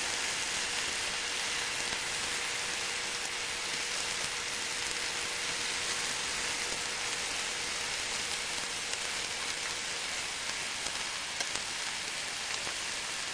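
Steak and sausages sizzling on a hot grill alongside vegetables: a steady hiss with a few faint crackles.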